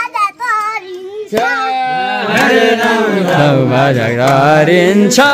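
Brief voices, then about a second and a half in a loud, chant-like sung melody with long held, gliding notes over a steady accompaniment.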